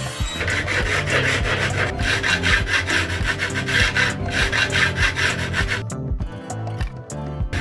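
Quick, even back-and-forth rasping strokes of hand filing along the edge of a small panel, over background music; the strokes stop about six seconds in and start again at the very end.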